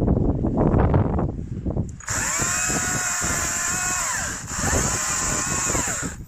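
STIHL MSA 200 C battery chainsaw: after about two seconds of rustling, its electric motor and chain whir up to speed with a steady high whine. Near the middle the pitch sags and picks back up once, and the whine cuts off suddenly just before the end.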